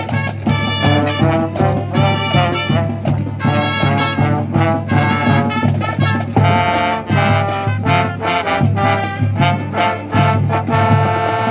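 High school marching band playing: trumpets and other brass, including a sousaphone, sounding sustained notes over a drumline keeping a steady beat.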